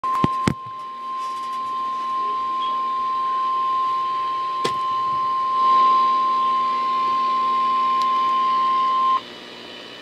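NOAA Weather Radio warning alarm tone: one steady 1050 Hz tone, held for about nine seconds, then cut off abruptly. It signals that an emergency warning is about to be read. A few sharp clicks come just at the start and again about five seconds in.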